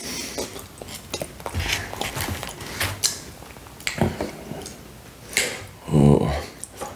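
Metal fork cutting into a chocolate lava cake, clicking and scraping on the paper and cardboard beneath, with scattered handling knocks. A short vocal sound comes about six seconds in.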